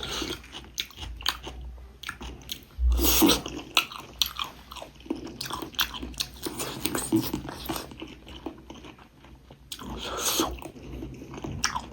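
Close-miked eating: a person chewing and biting into pork ribs and rice, with many short mouth clicks. It grows louder about three seconds in and again near the end.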